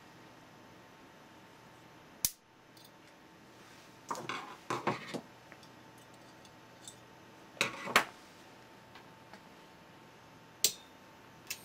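Wire strippers working the bare-wire spark gap on an ignitor circuit board, making a string of sharp metallic clicks and snips: a single click about two seconds in, a quick cluster a few seconds later, a close pair near the middle and two more clicks near the end.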